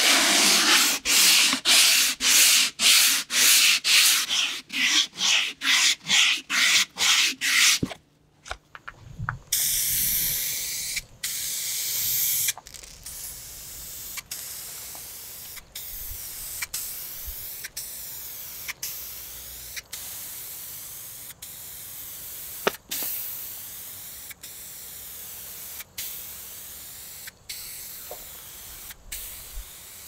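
Hand sanding of a primed sheet-metal cover, quick back-and-forth strokes about two a second. Then, a little after a third of the way in, an aerosol spray-paint can hissing as it lays on gloss black paint: one long burst, then steady spraying with brief breaks.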